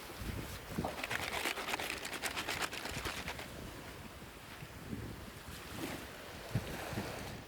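Packaging rustling and crinkling as it is handled, with dense crackling about a second in that lasts a couple of seconds, scattered soft knocks, and a low rumble of handling noise.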